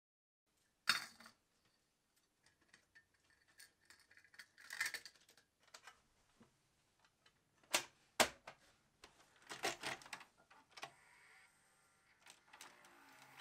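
Scattered small plastic clicks and knocks from a VHS cassette shell and its tape reels being handled and fitted together. The sharpest clicks come about 1, 5, 8 and 10 seconds in, with faint handling rustle between them.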